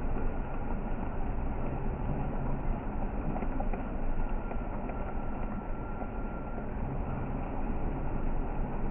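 Steady rumble of a vehicle's engine running, with no sharp events standing out.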